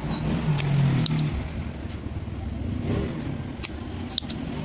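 A spring-loaded desoldering pump snapping a few times as it is fired on the potentiometer pins, sharp clicks over a steady low rumble of vehicle traffic.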